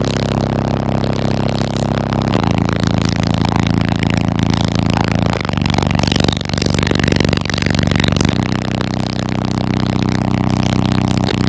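Car audio subwoofers, a Sundown ZV4 15-inch setup, playing loud held bass notes that step to a new pitch about every three seconds. The car's window and panels rattle and buzz under the bass, hard enough that the window glass is cracking.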